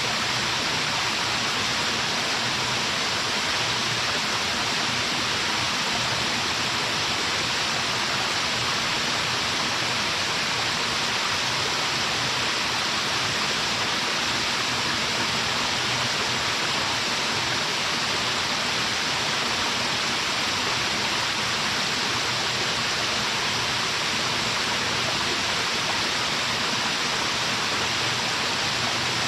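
Waterfall crashing steadily into its pool, an even, unbroken rush of water.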